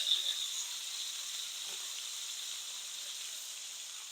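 Chicken breasts searing in hot olive oil in a frying pan: a steady sizzle, with a brighter hiss dying down in the first half second.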